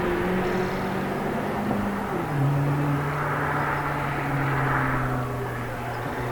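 2022 Honda Civic Si's turbocharged 1.5-litre L15B7 four-cylinder engine and exhaust heard from outside as the car drives by. The engine note drops in pitch about two seconds in, then holds steady.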